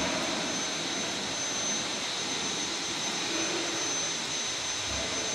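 Steady rushing background noise with a faint high whine running through it, like a running fan or distant machinery.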